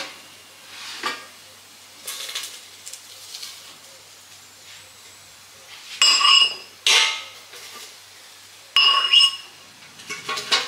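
Cookware handled in a kitchen: soft clinks and scrapes, then three loud metal clanks with a ringing tone, like a pot or pan and its lid knocked together, between about six and nine seconds in.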